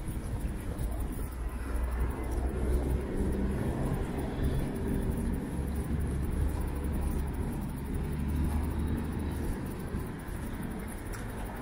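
Road traffic on a wide city avenue: vehicles passing, a steady low rumble that eases slightly near the end.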